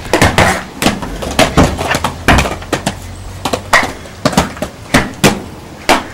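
Roller skates clattering on concrete: irregular sharp knocks and scrapes of the wheels and boots, several a second.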